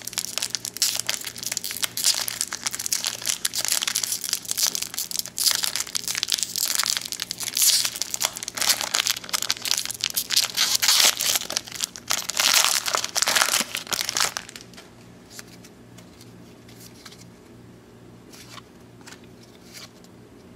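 A baseball card pack's shiny wrapper crinkling as it is torn open and crumpled by hand. The crinkling stops about fourteen seconds in, leaving only faint soft sounds of cards being flicked through.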